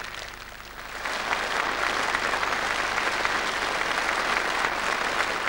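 Concert-hall audience applauding at the end of a dance number, starting lightly and swelling to full strength about a second in.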